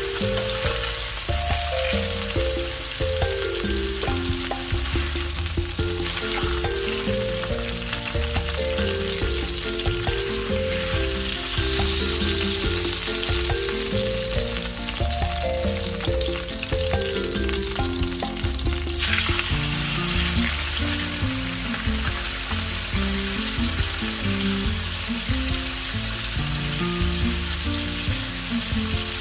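Chicken frying in hot oil with a steady sizzle that eases a little about two-thirds of the way through, under a light background music tune.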